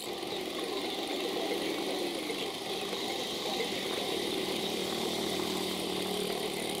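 Road traffic with motorcycle and car engines running, over a steady hiss of road and wind noise.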